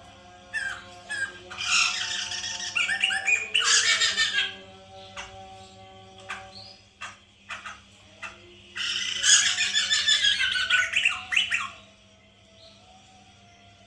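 Poksay mantel laughingthrushes calling in two loud bouts of harsh, squawking chatter, the first near the start and the second about two-thirds in. Between the bouts come scattered short notes and faint held whistles.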